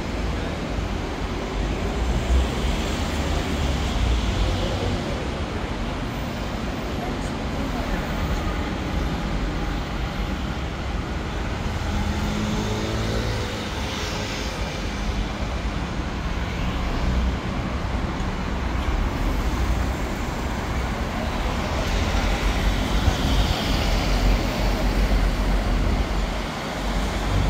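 City street traffic noise: a steady low rumble of engines and tyres. Passing vehicles swell louder about four seconds in, around fourteen seconds, and again near the end.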